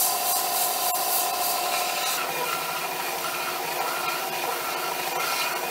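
Bench belt sander running while the cut end of a wooden handle is pressed against the moving abrasive belt: a steady motor whine mixed with the scratchy rasp of wood being sanded. About two seconds in, the pitch of the whine shifts as the handle is repositioned, standing upright on the belt.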